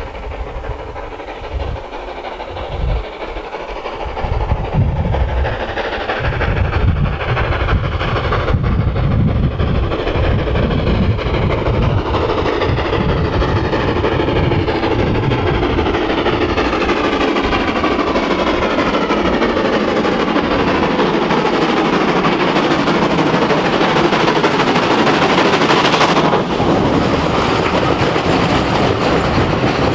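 Hunslet 0-6-0 tank steam locomotive working hard up a steep gradient, its exhaust beats growing steadily louder as it approaches. It passes close near the end, and its coaches' wheels clatter by.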